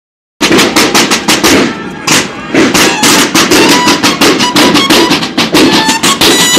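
Snare drums of a banda de guerra drum line played together in a fast, crisp march cadence of sharp strokes, easing off briefly about two seconds in. In the second half, bugle notes start to sound over the drums.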